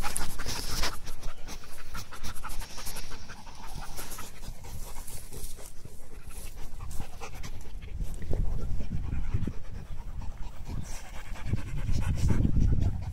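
A large dog panting rapidly, close up.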